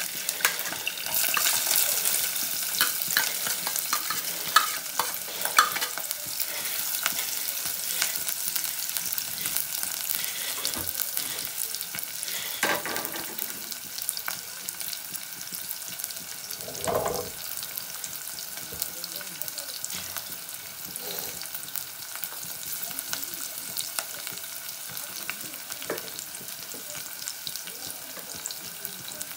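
Sliced onions and green chillies frying in hot oil in a non-stick saucepan: a steady sizzle, loudest as they go in and slowly settling. A spoon clinks against the plate and pan several times in the first few seconds, and there is a single knock about halfway through.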